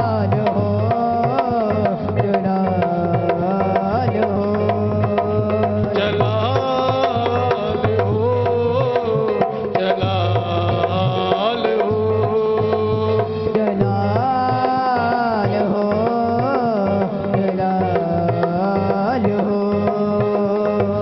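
Live devotional worship music: a steady drum rhythm under a gliding, ornamented melody line, playing without a break.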